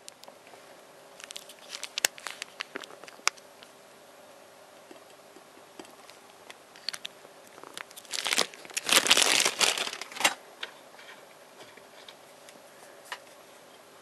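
Small tube of super glue being handled and squeezed close up: a few light clicks and taps early on, then a dense crinkling for about two seconds as the tube is squeezed, ending in a click.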